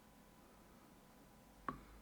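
Near silence, with one short sharp click near the end.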